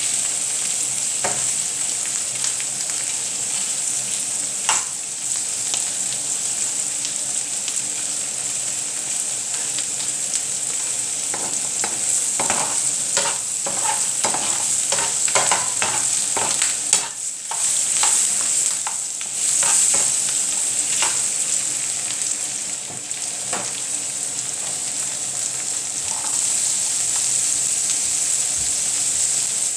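Egg and vegetable omelette sizzling steadily in a frying pan, with a utensil stirring and tapping against the pan in a busy run of scrapes and clicks about halfway through.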